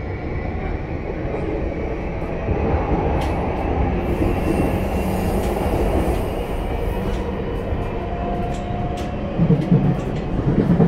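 Running noise inside a JR East E235-0 series Yamanote Line motor car with a Mitsubishi full-SiC VVVF inverter: a steady rumble of wheels on rail with faint steady tones from the traction drive and scattered light clicks. The sound grows louder near the end.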